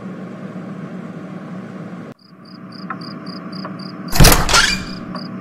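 A steady low background hum. After a cut about two seconds in, crickets chirp in a steady high rhythm of about three chirps a second, and a brief loud door sound breaks in about four seconds in.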